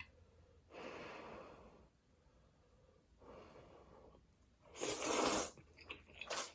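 A person breathing hard and sniffing: three rushing breaths, the third, about five seconds in, much the loudest, then a few small clicks near the end.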